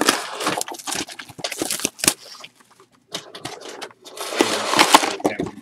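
A cardboard box of trading cards being torn open and handled: two long bursts of tearing and rustling with a short pause between.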